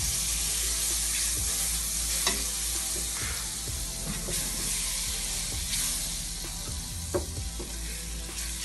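Butter sizzling as it melts in a stainless steel pot, stirred with a wooden spoon, with a few light taps of the spoon against the pot.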